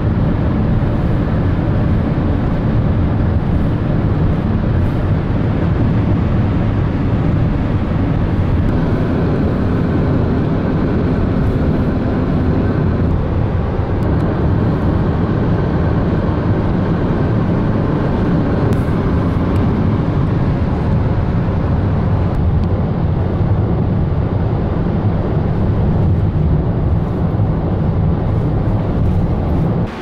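Steady road, tyre and wind noise inside a car cruising fast on a smooth highway.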